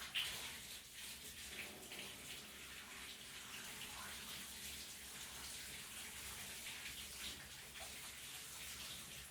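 Shower running: water spraying and splashing in a small bathroom, with a louder splash just after the start, then steady.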